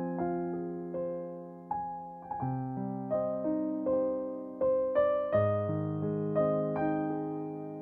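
Background piano music: slow single notes and chords struck and left to ring.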